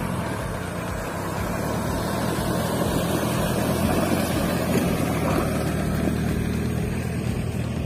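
Engine of a double-cabin pickup truck running as it drives through a shallow river, with water splashing around its wheels over the steady rush of the flowing water.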